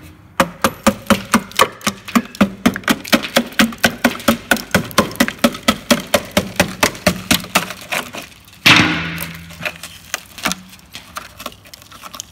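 Rapid, even knocking on the rotten steel inner sill of a van, about four to five knocks a second, the metal badly rusted and flaking. About nine seconds in there is one louder crunching hit, followed by a few scattered taps.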